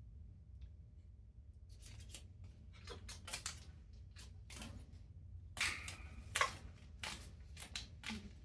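Parrot chewing and tearing paper with its beak: irregular crinkling and crunching bites that come faster and louder in the second half, with the loudest crunches about six seconds in.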